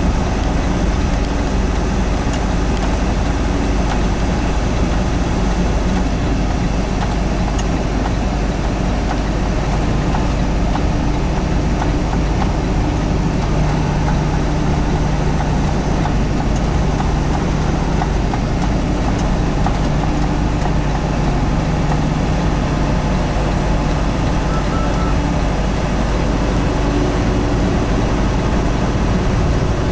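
Semi truck's diesel engine running steadily under a constant rush of road and wind noise.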